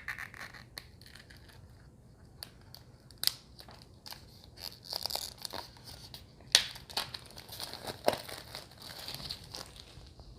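A new card deck being unwrapped by hand: packaging crinkling and tearing, with irregular sharp clicks and snaps, the loudest about three and six and a half seconds in.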